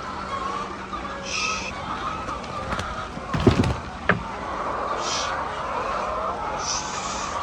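Hens clucking steadily in the background, with two sharp knocks about three and a half seconds in, half a second apart.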